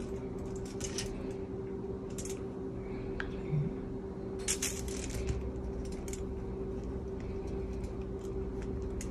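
Metal spoon scraping and tapping as queso is spread over a tortilla lying on aluminium foil and scooped from a glass jar, with short, scattered crinkles and clicks. A steady low hum runs underneath.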